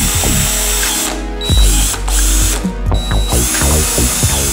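Cordless 18 V drill running in three short bursts, with brief pauses between them, against the plastic rear fender of a dirt bike.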